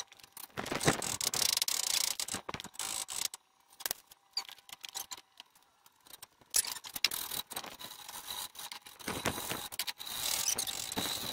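Scattered metallic clicks, scrapes and rattles as a long steel sword blade is taken out of a bench vise, handled and marked, with a near-silent pause about halfway.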